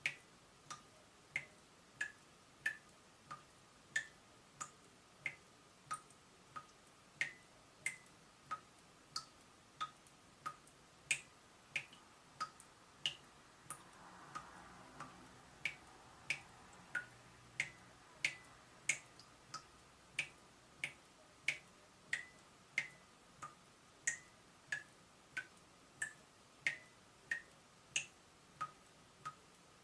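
Water dripping steadily from a leaking tap: single drops land at an even pace, about three every two seconds, each a short, sharp plink.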